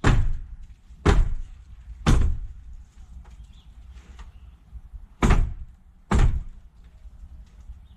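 Sledgehammer blows on the wooden boards and framing of an old chicken coop being torn down: three heavy strikes about a second apart, then, after a pause, two more.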